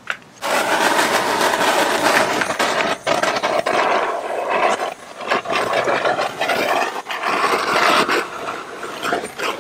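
Handheld torch flame hissing steadily as it is played over a freshly brushed epoxy coat, torching it to level the runs and get the bubbles out. It starts about half a second in and dips briefly a few times.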